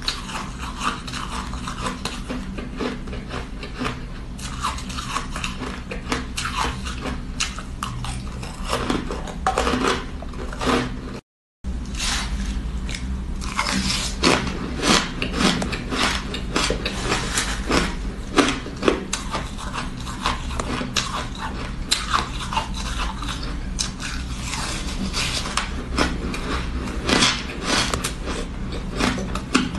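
Shaved ice being crunched and chewed in the mouth, a dense run of short crisp crunches, with a spoon scraping through the ice in the bowl. The sound cuts out completely for a moment about eleven seconds in, then the crunching resumes.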